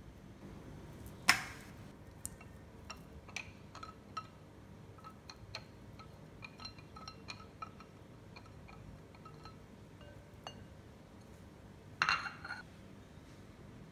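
Kitchenware clinking: a sharp clink on glass that rings briefly about a second in, then a run of light ticks and clinks as a wire whisk scrapes cream cheese and butter off a plate into a glass mixing bowl, and another loud ringing clink near the end as the whisk knocks against the glass bowl.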